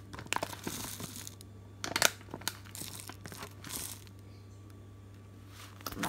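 Plastic packet of ground almonds crinkling as it is handled and tipped out into a small glass, in short irregular rustles that ease off about four seconds in.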